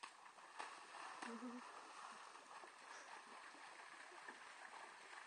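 Faint, steady sloshing and splashing of water from a horse wading through a cross-country water jump, with a few soft knocks in the first second and a half.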